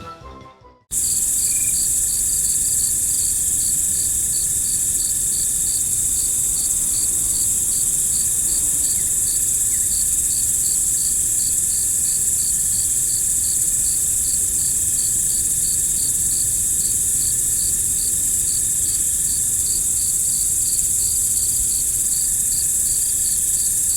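Chorus of night crickets: a steady high trill with a regular chirping pulse over it, as background music cuts off about a second in.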